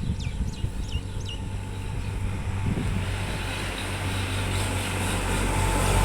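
A motor vehicle's engine hums steadily and grows slowly louder. In the first second and a half, a string of five or six short, falling, whistled chirps sounds over it, likely from a bird.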